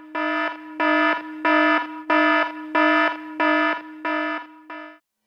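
Electronic alarm buzzer sounding in a steady pulsing pattern, about one and a half pulses a second. It fades slightly and cuts off about five seconds in.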